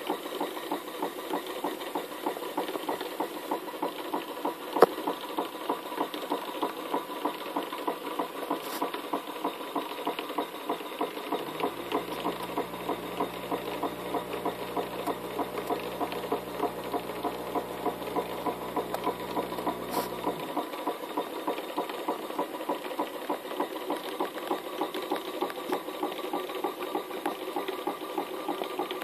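A 1/12-scale Ransome & May horizontal mill engine running at a slow, even pace: a steady, regular exhaust beat with light mechanical clatter from its valve gear and crosshead. There is a single sharp click about five seconds in, and a low steady hum from about twelve to twenty seconds in.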